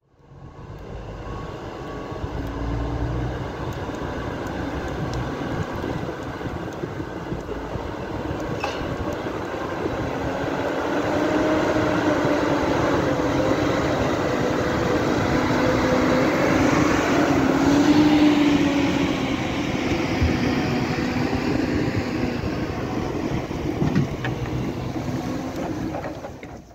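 HSM 904 forestry skidder's diesel engine running as the machine drives downhill dragging a load of logs, its pitch rising and falling with the throttle, with a few short knocks.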